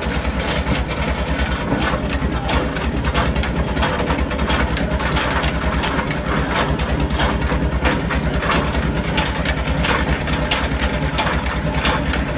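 Sawmill machine's engine running steadily at idle, with a fast low pulsing and frequent short knocks and clatter over it.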